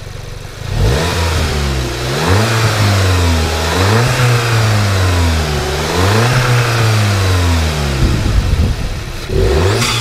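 Seat Leon Cupra 290's 2.0-litre turbocharged four-cylinder petrol engine, hot, on its stock air intake, revved repeatedly while stationary. The pitch rises and falls about four times, roughly every two seconds, then there is a shorter blip near the end.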